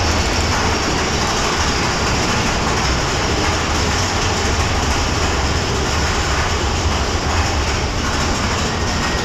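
Big Thunder Mountain Railroad mine-train roller coaster running on its track, a steady low rumble heard from on board the train.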